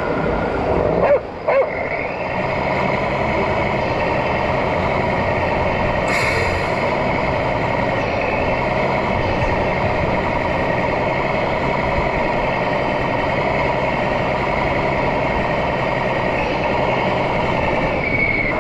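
RC model truck's sound module playing a simulated truck diesel engine running steadily, over the busy noise of an exhibition hall. A short hiss comes about six seconds in.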